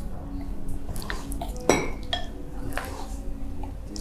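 Scattered clinks and knocks of a metal spoon and mixing bowls, a stainless steel bowl and a glass bowl, as flour is spooned in and tekwan fish dough is mixed by hand. The loudest is a single ringing clink about one and three-quarter seconds in.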